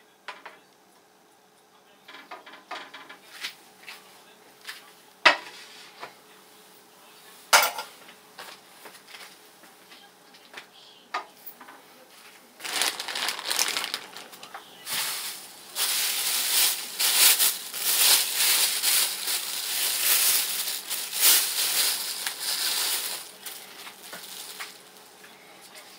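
Grilling and cooking-utensil sounds: a few sharp metallic clinks in the first half, then about ten seconds of loud, dense clattering and sizzling.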